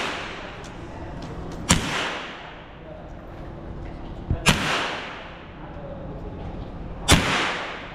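Gunshots at a shooting range: a single shot, then two in quick succession a little past halfway, then another near the end, each sharp crack followed by a brief echoing tail.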